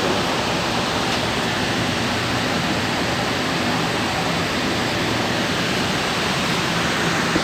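Steady rushing noise, an even hiss with no strokes or clicks standing out.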